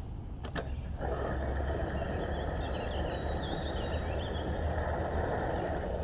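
Gas pump dispensing fuel: a steady motor hum with the even rush of flowing fuel, starting about a second in after a couple of short clicks.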